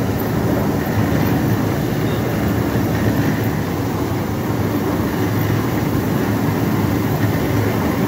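Industrial brush-roller potato washing machine running steadily, its rotating soft brush rollers turning potatoes over as they move along the washer.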